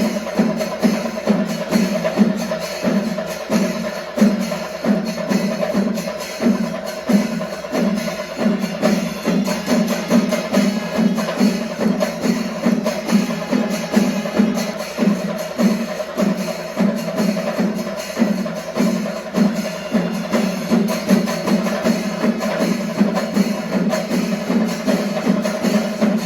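Kerala chenda melam: an ensemble of chenda drums beating a dense, fast, unbroken rhythm, with ilathalam cymbals clashing along.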